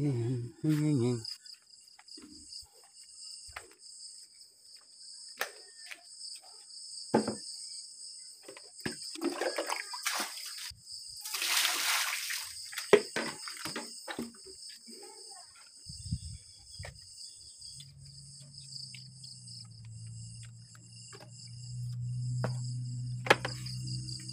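Crickets chirring steadily, with scattered knocks and clatter of handling, a brief rush of noise about halfway through, and a low steady hum in the last few seconds.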